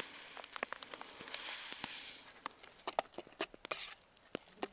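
Dry mashed-potato flakes poured into a pot of hot water with a soft hiss about a second in, over the sharp pops and crackles of a wood campfire.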